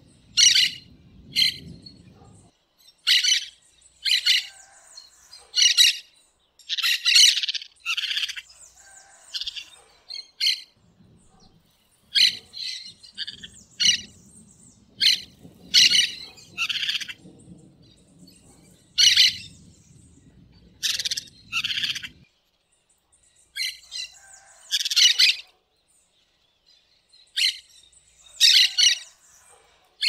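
Parakeets giving short, high-pitched chirping calls, singly and in quick clusters every second or two, with brief lulls around a third and three-quarters of the way through.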